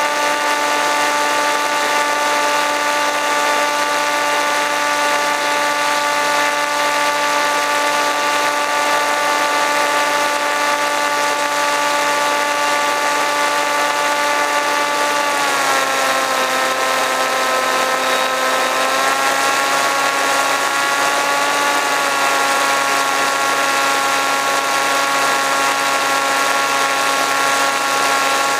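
RC plane's motor and propeller, picked up by the onboard camera, making a steady whine. About halfway through the pitch drops as the throttle is eased back, then steps up slightly twice.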